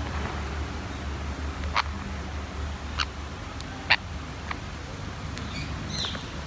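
Parrots giving short, sharp calls, four of them spread over a few seconds, the third the loudest, over a steady low rumble.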